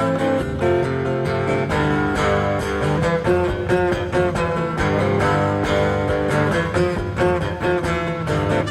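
Live band music without vocals: guitar playing a run of quick picked notes over bass, heard from a cassette tape recording of a concert.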